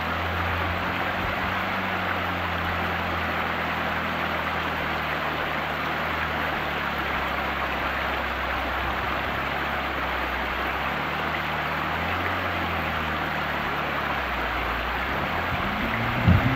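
Rushing river rapids with a jet boat's engine running at low revs underneath; the engine revs up near the end.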